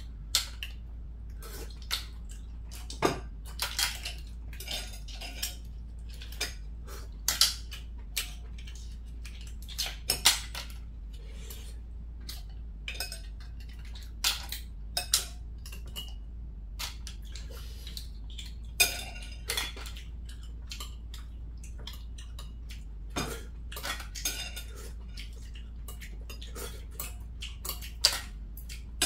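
Metal chopsticks and spoons clinking and tapping against bowls and mussel shells as mussels are picked from a bowl of mussel soup: many short, irregular clicks at uneven intervals.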